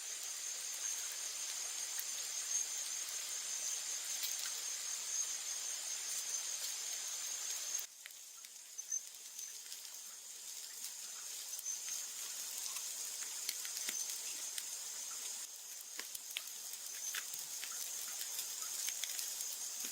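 Steady, high-pitched chirring of jungle insects, with scattered small clicks and crackles over it. It drops in level about eight seconds in and dips again later.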